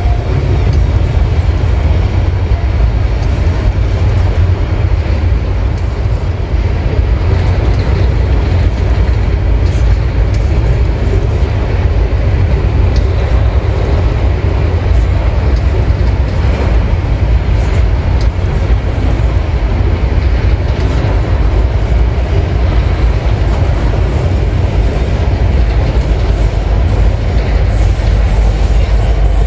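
Freight train wagons rolling past on the rails: a steady, loud rumble.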